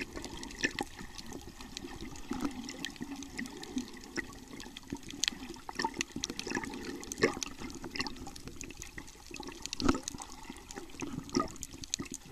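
Underwater sound picked up by a camera below the surface: muffled water movement with many scattered clicks and crackles, and a few louder swishes about seven and ten seconds in.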